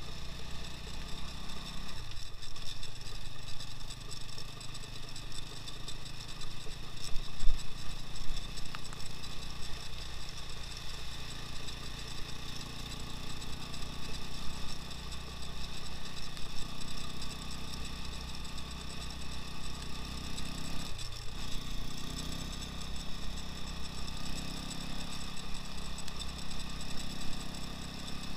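Two-wheel-drive all-terrain motorcycle's engine running steadily under way, its pitch dipping briefly about two seconds in and again about twenty-one seconds in. A single short knock about seven and a half seconds in.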